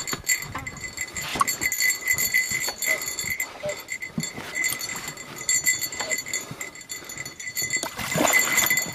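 Water sloshing and splashing against an inflatable boat's tube as a big wels catfish is brought alongside and gripped by hand, with a louder splash near the end as the fish surfaces. A high, rapidly pulsing tone runs underneath.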